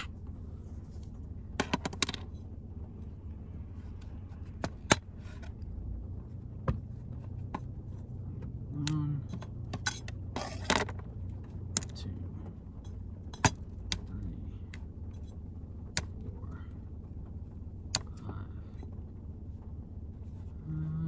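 Broccoli being cut with a knife and broken into florets on a tray: scattered sharp clicks and snaps, one louder crunch about eleven seconds in, over a steady low rumble.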